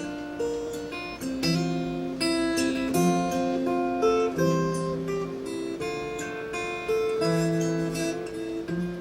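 Acoustic guitar strumming and picking chords with no singing: the song's closing instrumental passage.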